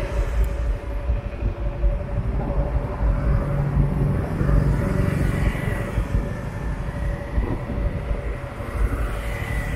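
Road traffic passing close by over a steady low rumble, with a car going past about four seconds in.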